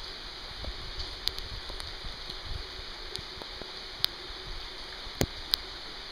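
Steady rain falling, with scattered sharp drops landing close by, the loudest a little after four and five seconds in.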